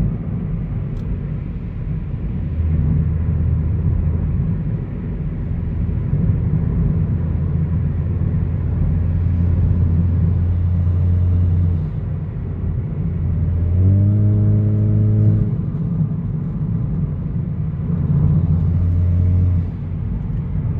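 Hyundai Elantra GT Sport's 1.6-litre turbo four-cylinder through an aFe axle-back exhaust while driving: a steady low exhaust rumble, with a brief, more tonal rise in the engine note about two-thirds of the way through.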